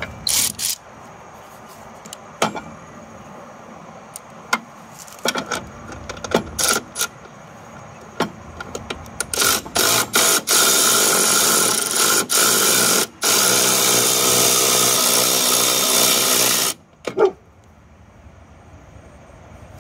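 Tool work loosening the pump's belt-tensioning base-plate bolt: scattered metallic clicks and knocks, then a loud continuous tool noise for about seven seconds with a couple of short breaks, stopping abruptly near the end.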